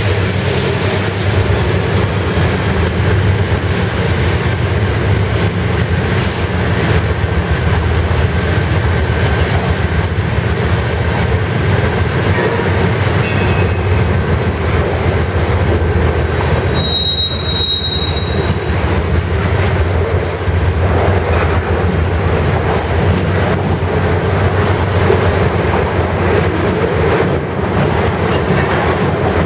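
Loaded covered hopper cars of a freight train rolling past close by: a steady rumble and clatter of steel wheels on the rails. About two-thirds of the way through, one short high-pitched squeal of wheels on rail.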